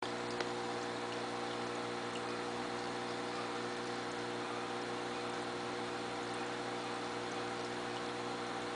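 Aquarium pump running: a steady hum under an even hiss of moving water.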